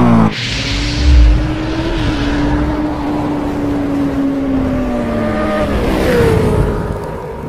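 Racing-motorcycle sound effect: a deep boom about a second in with a hiss over it, then one long steady engine note that slowly sags in pitch, and a rev that rises near the end.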